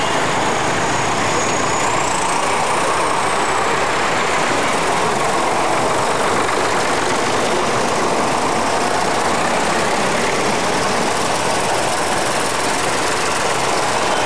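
Tractor engines running steadily as a line of vintage and modern tractors drives slowly past one after another, a continuous engine noise with no pauses.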